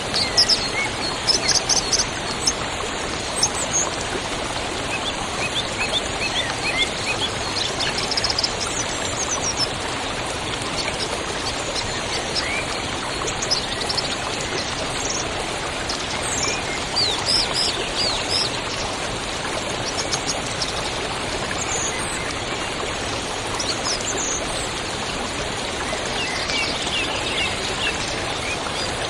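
Waterfall: a steady rush of falling water, with small birds chirping in short bursts several times over it.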